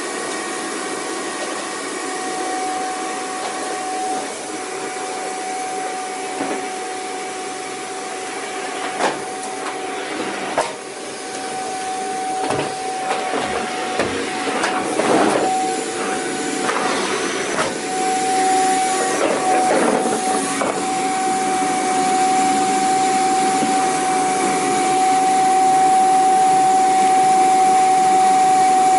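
Vacuum cleaner running: a steady rushing of air with a constant whine. Two sharp knocks come around 9 and 10 seconds in. Between about 12 and 21 seconds the sound wavers and sweeps in pitch, then it runs steady and louder to the end.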